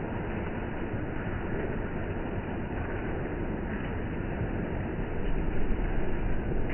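Steady monsoon rain falling, with low wind rumble on the microphone that grows louder about five seconds in.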